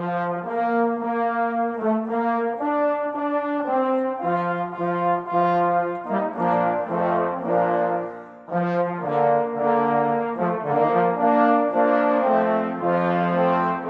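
Brass ensemble playing a slow piece in sustained chords, several horns sounding together and moving note by note, with a short break about eight and a half seconds in.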